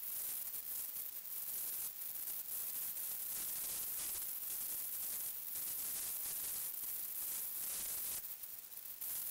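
Steady high-pitched hiss from the night-vision riflescope's built-in recorder, with no distinct animal or other sounds; it dips briefly near the end.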